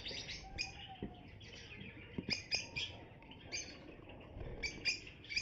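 Caged lovebirds chirping and chattering: many short, high chirps overlapping one after another, with a few light knocks.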